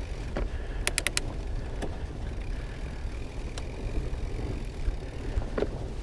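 Fat-tyre bike rolling along a dirt singletrack, a steady low rumble of tyres and wind on the microphone. About a second in there is a quick run of four sharp clicks.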